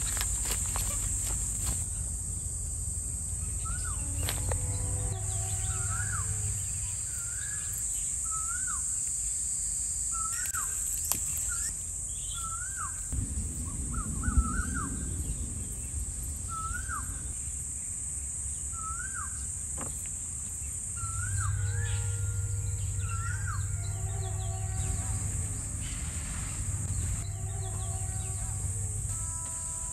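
A bird repeats a short, rising-hooked call about once a second over a steady, high-pitched drone of insects.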